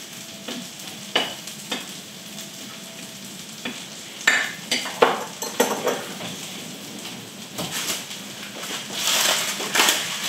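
Food sizzling as it fries in a pan, with scattered clicks and knocks of a utensil against the pan. The sizzle swells louder about nine seconds in.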